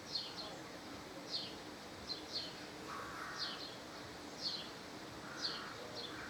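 A small bird chirping repeatedly in the background: short, high chirps that fall in pitch, about one a second.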